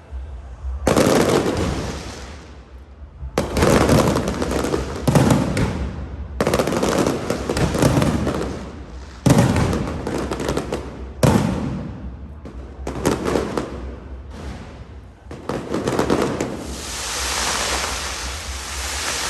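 Aerial firework shells bursting overhead in quick succession, a loud boom every second or two, each fading off. Toward the end the booms give way to a steady crackling hiss.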